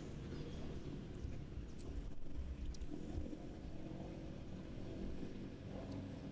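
Distant motor vehicle engine running: a low, steady rumble.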